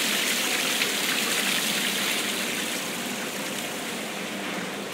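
Floodwater pouring down in a cascade: a steady rush of water that slowly grows quieter.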